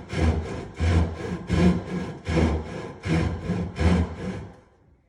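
Irwin finish saw, a fine-tooth hand saw, cutting through a wooden cabinet face-frame stile in steady back-and-forth strokes, a little over one stroke a second, stopping about four and a half seconds in.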